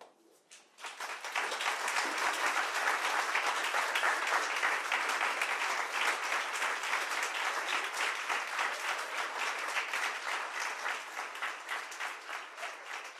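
Audience applauding: a couple of single claps, then steady applause from about a second in that thins out toward the end.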